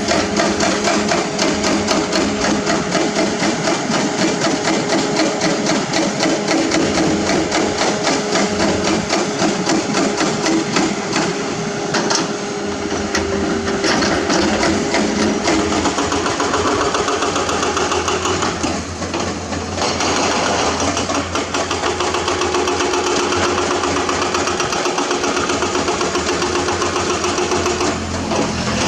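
Excavator-mounted hydraulic rock breaker hammering hard limestone in rapid, steady blows, over the excavator's diesel engine running. The hammering briefly eases about two-thirds of the way through, then resumes.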